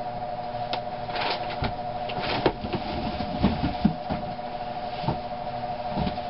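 Scattered knocks, scrapes and rustles of a person shifting and lying down on an attic's plywood floor and a sheet of cardboard, over a steady hum.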